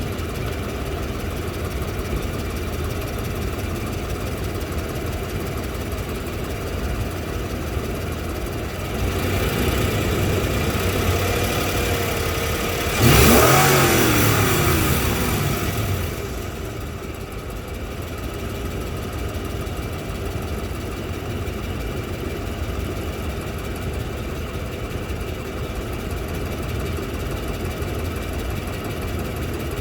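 Toyota Land Cruiser 200's 4.7-litre 2UZ-FE V8 idling, with the revs raised about a third of the way in and blipped sharply just before halfway, then falling back to idle. The engine has a knock on its left side whose cause has not been found: the valves, the fan clutch and a rewelded exhaust manifold with a new gasket have been checked.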